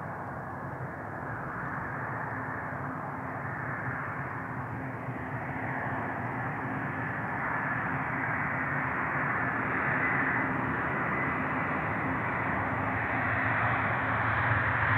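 Airbus A350-900 jet airliner on landing approach: a steady jet rumble growing slowly louder, with a faint high whine coming in about halfway.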